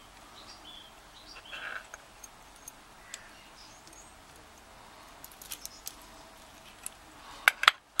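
Small metallic clicks and taps from the brass core of an American Lock 701 padlock being handled while a plug follower pushes its plug out. Near the end come a few sharp clicks, the loudest sounds.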